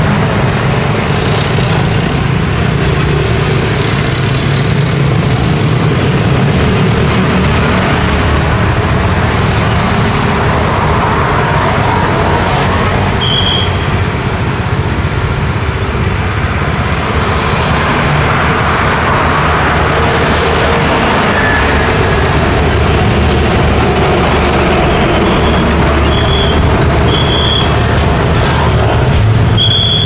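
Steady road traffic: motorcycles, cars and small pickup trucks passing with a continuous engine rumble and tyre noise. A few short, high-pitched beeps sound about midway and several more near the end.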